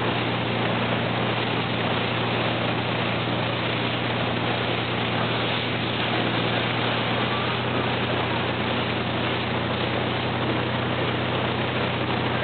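Motorboat engine running at a steady low hum, under a constant rush of water and wind.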